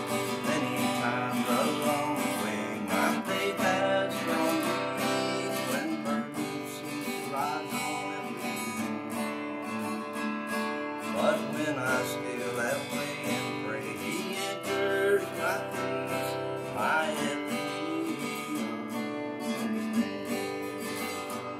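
Acoustic guitar strummed in a steady rhythm, playing the instrumental break of an upbeat gospel song.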